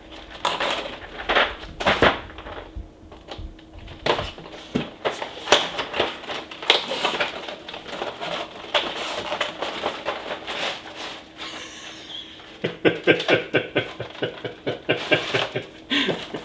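Packaging and small plastic parts being handled: a string of clicks, rustles and crackles, with a quick run of clicking and clattering near the end.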